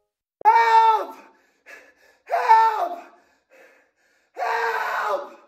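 A man wailing: three long, loud, high cries, each dropping in pitch as it trails off, with short gasping breaths between them; the third cry is rougher and breathier, close to a scream.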